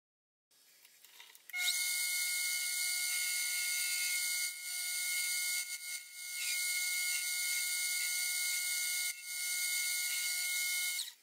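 Mini lathe running, a steady high whine with a hiss over it, while it turns a brass flywheel blank. It starts about a second and a half in, dips briefly about three times, and stops suddenly near the end.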